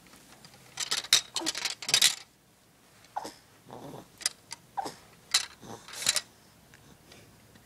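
Plastic baby toy keys on a ring clacking and rattling as a baby grabs and shakes them: a quick cluster of sharp clacks about a second in, then scattered single clacks from about three to six seconds in.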